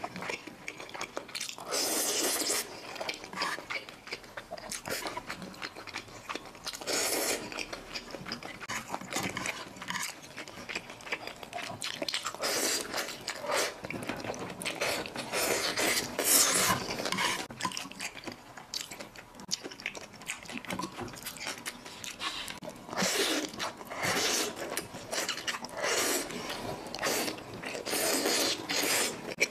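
Thick Xinjiang fried rice noodles in oily sauce being slurped into the mouth and chewed, heard up close: repeated noisy slurps of about a second each, a few seconds apart, with wet chewing between.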